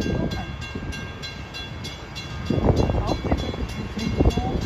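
BNSF freight train rolling past with a low rumble that grows louder about halfway through. A high-pitched ringing repeats about four times a second throughout.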